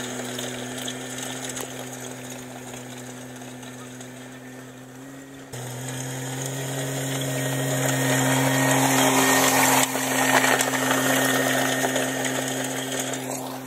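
Kubota RTV 900 utility vehicle's three-cylinder diesel engine running at a steady speed while it pulls a hay rake, getting louder as it drives close past and then easing off.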